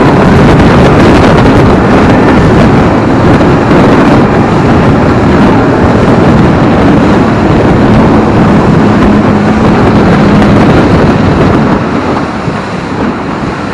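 Tour boat's engine running under way, with wind buffeting the microphone; the noise eases off near the end.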